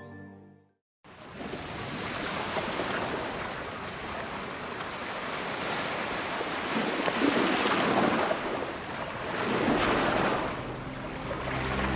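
Ocean waves rolling in and washing over shallow tidal water, a steady surf that swells twice in the second half. Background music fades out at the start and comes back in near the end.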